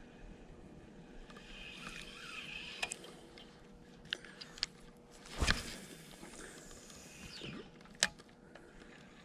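Spinning reel being handled and a rod cast: a few light clicks of the reel, a brief whoosh of the cast about five and a half seconds in, and a sharp click near the end.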